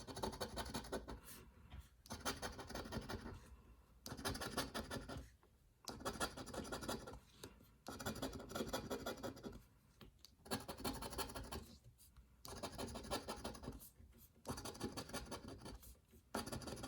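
A coin or scraper scratching the latex coating off a lottery scratch-off ticket in repeated short strokes, in spells of a second or two with brief pauses between them.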